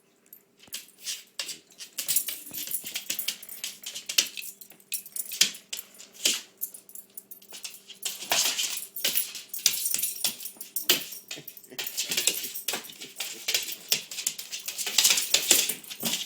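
A pit bull and a cat play-fighting: a busy run of irregular scuffles and short noisy bursts, with a faint steady hum underneath.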